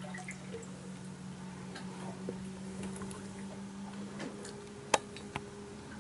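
Rum trickling from a glass decanter into an opened coconut, with scattered small clicks and one sharp click just before five seconds in, over a steady low hum.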